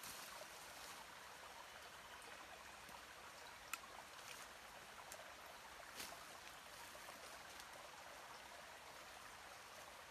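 Faint steady rush of a distant stream, with a few soft clicks and rustles as hands and a small tool work in dry leaf litter; one sharp tick comes nearly four seconds in.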